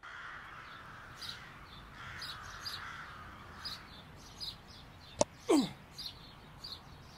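Birds chirping over a steady outdoor hiss. About five seconds in comes one sharp knock, followed at once by a short sound that slides quickly down in pitch.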